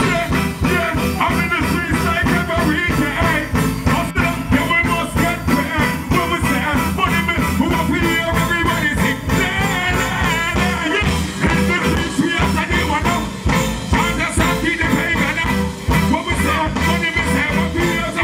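Live reggae music through a stage sound system: a man singing and chanting into a handheld microphone over a backing riddim with a steady bass beat.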